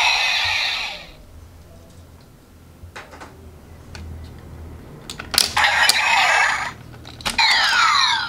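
CSM Kamen Rider W Double Driver toy belt: its electronic sound cuts off about a second in, then plastic clicks and a sharp clack as the driver is folded shut by hand, followed by electronic sound effects with falling sweeping tones near the end.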